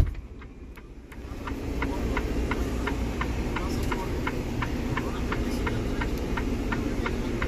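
A sharp click, a brief lull, then a diesel truck engine starting up about a second in and settling into a steady idle, heard from inside the cab, with a regular light ticking about three times a second.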